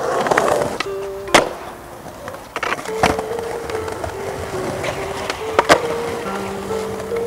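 Skateboard rolling on concrete, with three sharp clacks of the board hitting the ground about one and a half, three and nearly six seconds in. Background music plays throughout.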